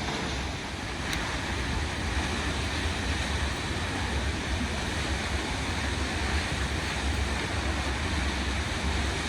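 Steady rushing roar of Brandywine Falls, a waterfall about 70 metres high, with wind buffeting the microphone in a low, fluttering rumble.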